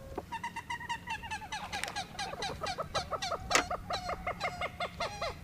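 Birds calling: a fast chattering run of short, slightly falling calls, about five or six a second, with two or more birds calling over each other.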